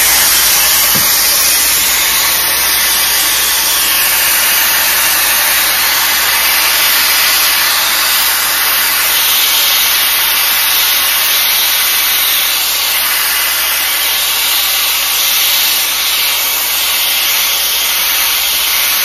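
Shark HD430 FlexStyle air styler blowing hot air through its curling barrel, with a lock of hair wrapped around it: a loud, steady rush of air.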